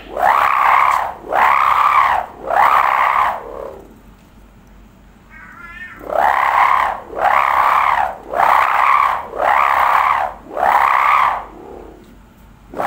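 Sendaren (koang) kite hummer sounding in the wind as a series of wailing tones about a second long, each rising then falling in pitch, roughly one a second. There is a break of about two seconds after the first three.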